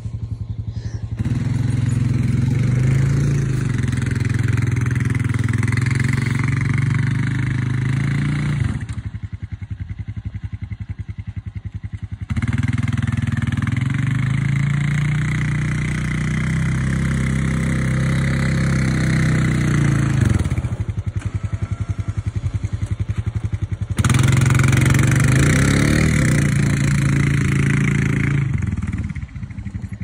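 Engine of a small snow-plowing vehicle, throttled up and running hard for several seconds at a time, three times, easing back to lower, quieter running in between, with the pitch dropping as it slows.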